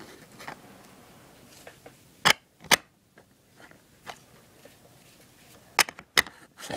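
Sharp plastic clacks as a Rubik's Cube is handled and set on its plastic display stand: two pairs of clicks about half a second apart, the first a little over two seconds in and the second near the end, with faint small ticks between them.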